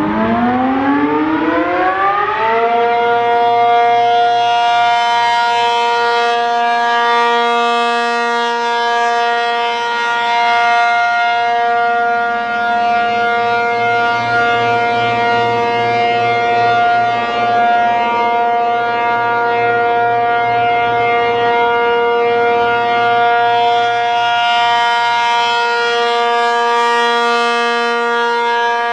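ASC RM-135/T-135 electric AC outdoor warning siren winding up, its pitch rising over the first two and a half seconds or so. It then holds a loud, steady chord of several tones: the full alert (steady) signal.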